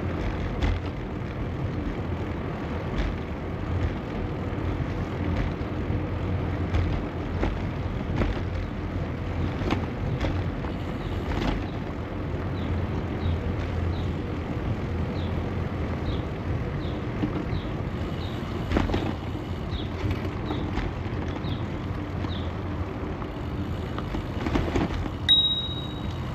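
Steady rumble of riding a bicycle along a trail: tyres rolling and wind on the microphone, with scattered ticks and clicks. Midway a run of short high chirps repeats about twice a second, and a brief high ring sounds near the end.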